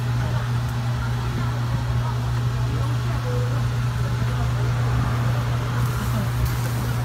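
Steady low hum of an electric fan or blower motor running at a constant pitch beside a charcoal corn grill.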